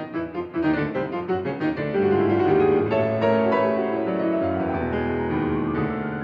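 Solo piano playing a comic classical piece. It begins with short detached notes, grows louder and fuller about two seconds in, and then has a line of notes climbing steadily upward.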